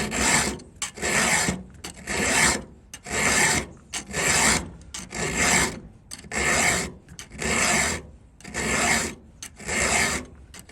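Round chainsaw file rasping across a cutter tooth of a 3/8 saw chain in steady hand strokes, about one a second, ten strokes in all, to sharpen a dull, badly filed tooth.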